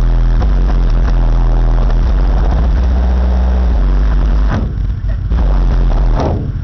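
Two 12-inch Pioneer Premier TS-W3002SPL subwoofers in a car playing very loud, deep sustained bass notes, heard from outside the car. About four and a half seconds in, the bass briefly drops out and comes back in hard hits.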